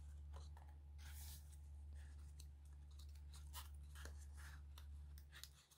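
Near silence: a steady low hum with faint, scattered clicks.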